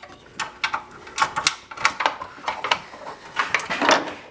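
Irregular light clicks and rattles of a hood release cable and nearby parts being handled and fed through wiring, with a louder scraping rustle near the end.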